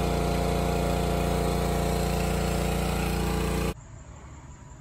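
Small gasoline engine of an Echo Bearcat hydraulic log splitter running at a steady speed. It cuts off suddenly about three and a half seconds in, leaving only a faint low hum.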